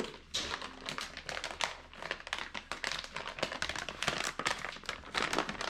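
Packaging crinkling and rustling in quick irregular crackles as a graphics card is unpacked and handled.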